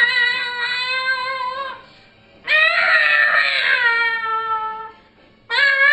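A man singing in a high-pitched, strained voice: three long drawn-out notes, each sliding slightly down at its end, with short breaks between them.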